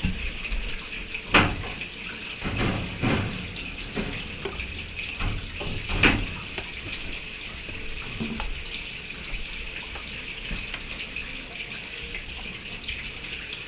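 Soft handling noises of wet air-dry clay: rubbing and pressing as two leaf shapes, glued with slip, are squeezed together, with a light knock about six seconds in as the piece is put down on a wooden board and pressed flat, over a steady faint hiss.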